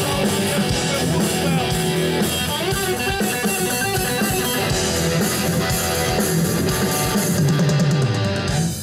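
Loud band music with strummed electric guitar and a drum kit.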